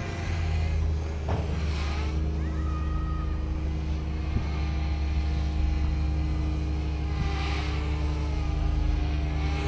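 Parrot Bebop quadcopter's propellers buzzing steadily as the drone flies low overhead, coming home to land.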